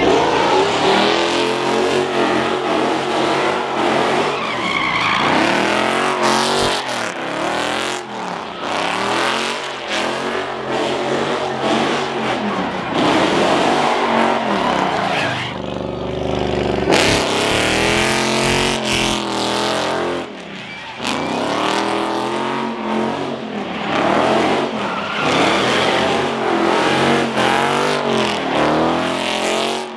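Car engines revving hard, their pitch climbing and dropping again and again as cars drift, with tires squealing and skidding on the pavement.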